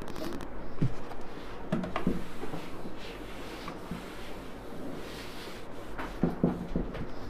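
Cloth duster rubbing across a whiteboard as writing is wiped off, soft rubbing strokes with a few light knocks.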